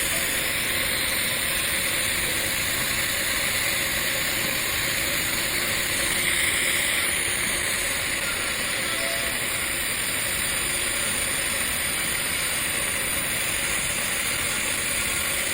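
TIG welding arc on stainless steel, a steady, unbroken hiss.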